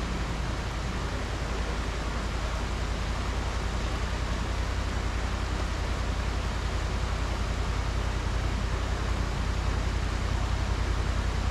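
Side-by-side UTV engine idling while stopped: a steady low rumble under an even hiss.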